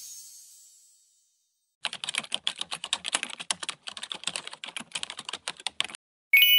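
Keyboard typing sound effect: rapid key clicks for about four seconds, then a short bright ding near the end.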